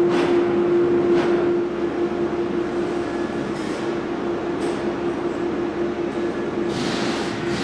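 Overhead crane hoist and workshop machinery running steadily: a constant mid-pitched hum over a noisy mechanical rush, with hissing surges just after the start, about a second in and again near the end.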